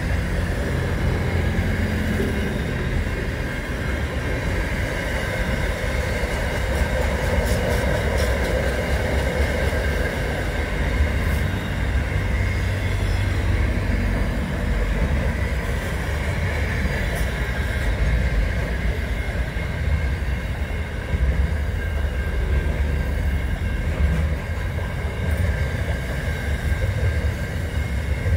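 Container wagons of a long freight train rolling past at close range: a steady low rumble of steel wheels on rail, with a steady high-pitched whine held over it and a few faint clicks.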